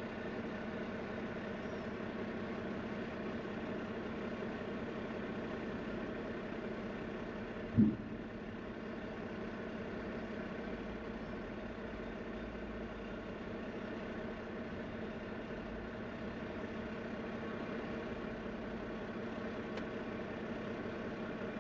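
Semi-truck's diesel engine idling with a steady, even hum. A single short, loud blip cuts in about eight seconds in.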